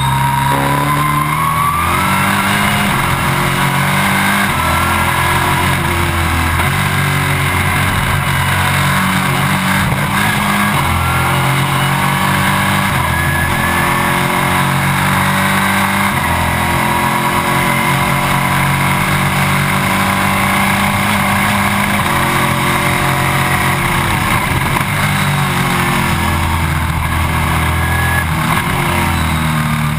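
Stock Car Brasil race car's V8 engine at racing speed, heard from inside the cockpit. The engine note climbs through the gears, breaks at each shift, and falls away under braking, over and over.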